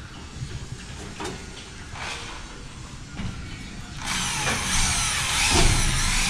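A power tool's motor starts suddenly about four seconds in and runs loud, its pitch dipping and rising. Before it there are only faint clicks and handling sounds.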